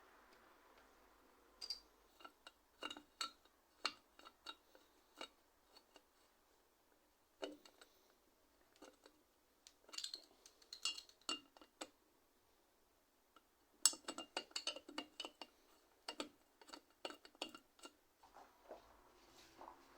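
Light metallic clicks and clinks from tools and small bicycle parts being handled and fitted, some ringing briefly. They come in short clusters with quiet gaps between.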